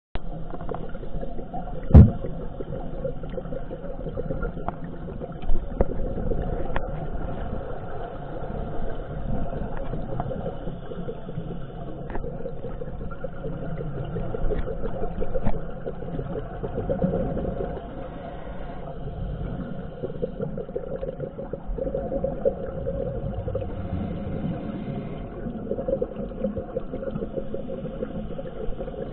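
Underwater noise picked up by a dive camera: a steady low rumble with occasional faint clicks, swelling every few seconds, and one sharp knock about two seconds in.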